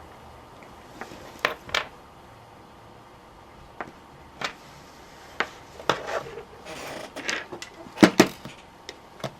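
Scattered light clicks and knocks of tools and parts being handled and set down on a workbench, with the loudest pair of knocks about eight seconds in.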